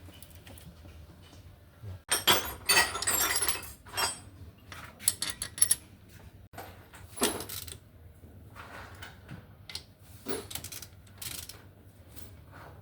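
Metal tools and engine parts clinking and clattering against each other in irregular bursts, the longest about two seconds in, with shorter clinks scattered after.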